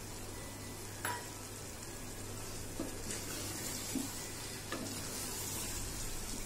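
Wooden spatula stirring thick mutton masala curry as it fries in a metal pot, with a light sizzle that grows a little about three seconds in. A few soft knocks of the spatula against the pot, the first about a second in, over a steady low hum.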